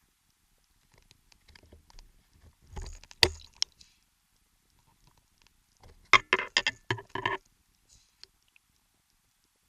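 Two clusters of sharp knocks and clicks: a few about three seconds in, then a quick run of about eight knocks between six and seven and a half seconds in.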